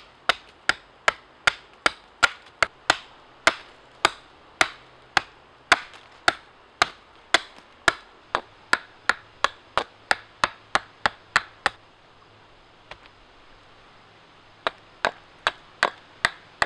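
Hatchet chopping into a short upright log, sharp strikes about two a second, chipping wood away to cut a flat face into it. The chopping stops for about three seconds near the end, then starts again.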